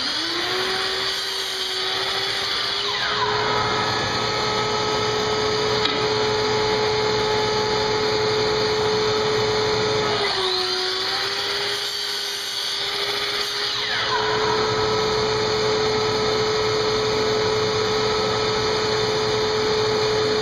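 Dust extractor running steadily through a hose on a sliding compound miter saw. About halfway through its hum sags briefly while a higher whine rises and falls, as the saw makes a cut.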